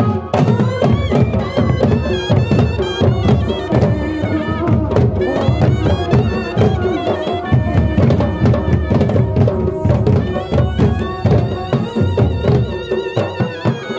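Live jhumar folk music: hand-played barrel drums beating a fast, dense rhythm under a wavering melody line.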